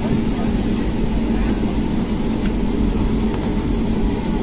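Cabin noise of a Boeing 757-200 taxiing, heard from inside the cabin: the jet engines at low taxi power giving a steady low rumble with a constant hum.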